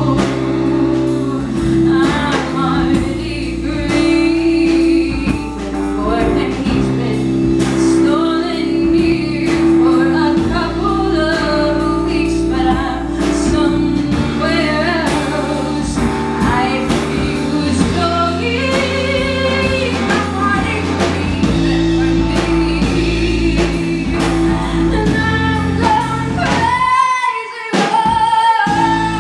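Live band playing a song: a woman sings lead over acoustic guitar, electric guitar and bass. Near the end the band drops out for about two seconds, leaving her voice holding one wavering note.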